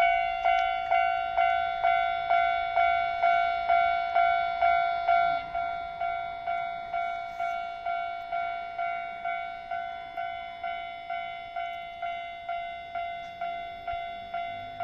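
Japanese railway level-crossing warning bell ringing its electronic clang, a little over two strikes a second, each strike a clear ringing tone. It grows fainter after about five seconds.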